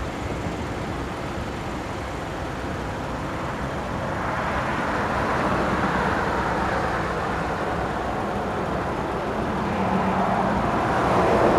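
Cars passing on a road, their tyre and engine noise swelling about halfway through and again near the end, over a steady low rumble.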